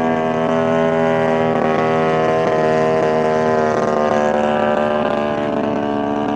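DLE 55 single-cylinder two-stroke gas engine of a large radio-controlled Tiger Moth biplane running steadily in flight, growing slightly quieter near the end.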